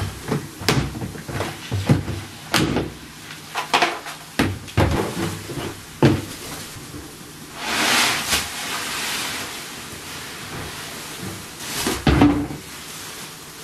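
Plastic cat litter box being cleaned out: a run of plastic knocks and scraping, then a longer rattling, rustling noise about eight seconds in, and a sharp knock just before the end.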